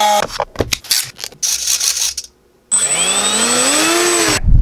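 A small rotary tool drilling into 3D-printed plastic, with clicks and knocks, for about two seconds. After a brief silence, the RC hovercraft's electric fan motor spins up: a rising whine with a thin, steady high whistle above it, cutting off abruptly near the end.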